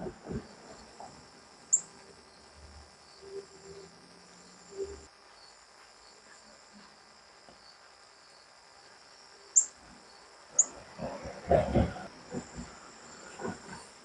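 Steady chorus of crickets trilling high and continuously, with three short, sharp high chip notes: one about two seconds in and two more a second apart around two-thirds of the way through.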